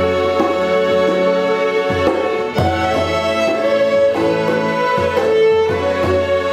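School string orchestra playing Scottish traditional music, several violins bowing the tune together over low held bass notes.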